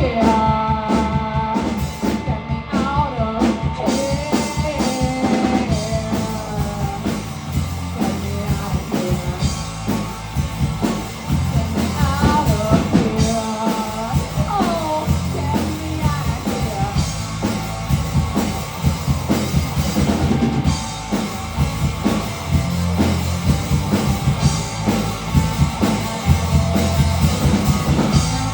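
Rock band playing live: a drum kit keeping a steady beat under electric guitar, with bent, gliding guitar or vocal lines in places.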